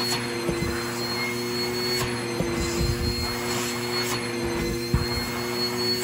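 Canister vacuum cleaner running steadily on a fleece carpet, a constant motor whine over the rush of suction, with a few brief knocks from the nozzle being moved.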